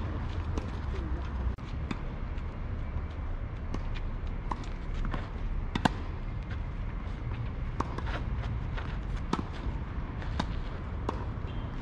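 Tennis rally on a clay court: sharp racket strikes and ball bounces scattered through, the loudest about six seconds in, with footsteps on the clay, over a steady low background rumble.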